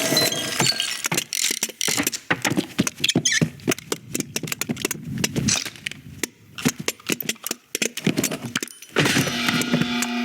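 Film sound effects: a busy run of clicks, knocks and rattles of small objects, then a steady pitched buzz starting near the end.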